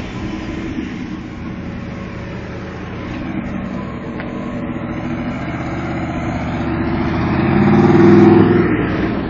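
Engine of a Shelby Cobra-style roadster running as the car drives slowly closer, growing louder to a peak about eight seconds in as it passes, then starting to fade.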